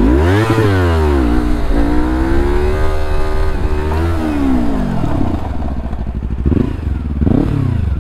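Motorcycle engine revving in second gear as the rider works clutch and throttle to slide the rear wheel: a quick rev up and down in the first second, revs held high for a couple of seconds and then dropping, and two short throttle blips near the end.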